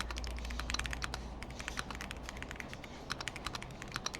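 Typing on a Keychron Q1 Pro mechanical keyboard: a quick, uneven run of key clacks.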